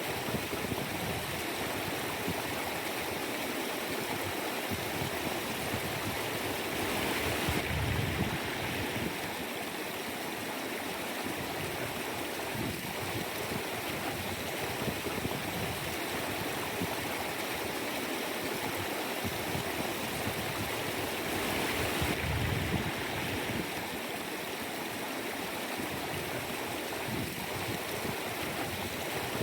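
Mountain stream flowing: a steady rush of water, swelling a little louder twice.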